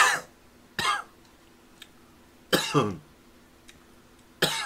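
A man coughing four times in short bursts, the third cough longer and voiced.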